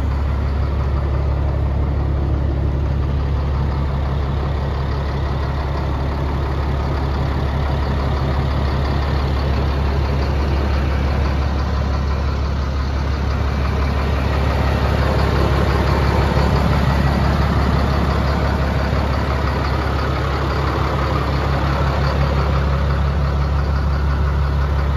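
Cat diesel engine of a 1998 Freightliner FL70 truck idling steadily with a deep, even hum, getting a little louder around the middle.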